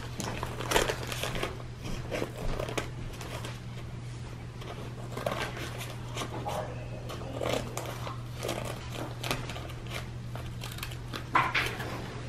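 Child's safety scissors snipping into a brown paper bag, with the paper crinkling and rustling in irregular snips, over a low steady hum. A louder brief rustle comes near the end.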